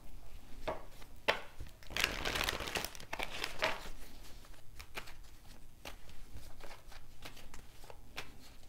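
Tarot cards being handled: a dense burst of shuffling and rustling about two seconds in, then scattered light clicks and taps as cards are handled and set down.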